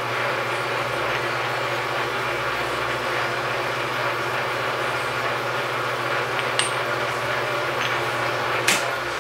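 Metal lathe running steadily with a hum, spinning a shaft coated in lapping compound while a split bearing block is held and rubbed on it to lap the bore to fit. A sharp metallic click near the end.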